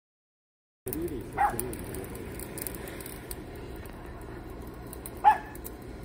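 Two short dog barks, about four seconds apart, over the steady low rush of a butane torch flame held to charcoal in a camping grill; the sound starts about a second in, after silence.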